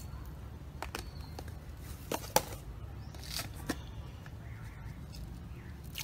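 A few short, sharp clicks and knocks over a steady low hum, the loudest about two and a half seconds in.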